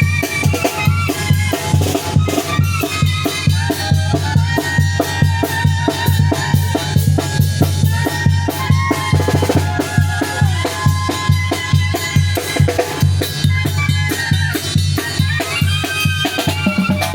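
Tamborazo band playing: the tambora bass drum and cymbal keep a dense, steady beat under a sustained melody from the saxophones and trumpets.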